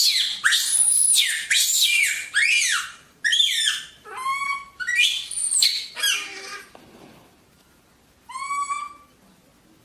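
A baby macaque screaming: a run of shrill, high calls that sweep up and down in pitch, then shorter wavering calls. After a pause there is one more call near the end.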